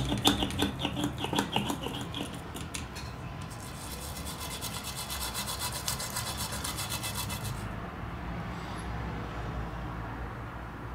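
Stiff brush scrubbing the alcohol-wet logic board around an iPhone 6 SIM card reader: rhythmic scrubbing strokes at first, then a long run of fast, fine scratching that stops abruptly about three-quarters of the way through.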